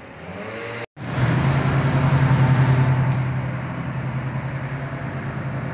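Diesel locomotive engine of an approaching Norfolk Southern train: a loud, steady low drone that begins suddenly about a second in.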